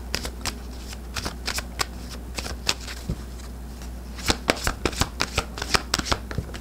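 A deck of oracle cards being shuffled by hand: scattered card snaps at first, then a quick run of snapping cards over about the last two and a half seconds.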